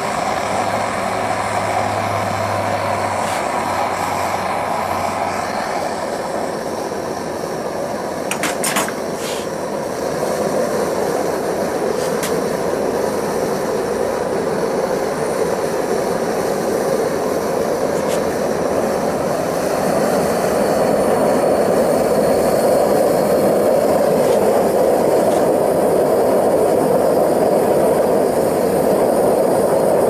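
Two-torch propane melting furnace burning steadily with a continuous rushing burner noise, its torches throttled back. The noise grows somewhat louder about two-thirds of the way through, and a few short sharp clicks come around nine seconds in.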